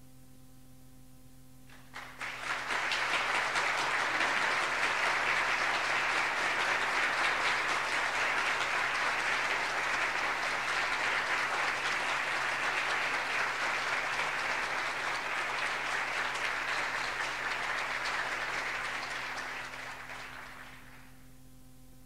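Crowd applause sound effect, many people clapping. It starts about two seconds in and fades out near the end, over a faint steady hum.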